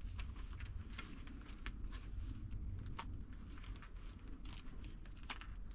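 Dry, thin flatbread being broken and handled by hand, giving irregular small crackles and crinkles, over a low steady rumble.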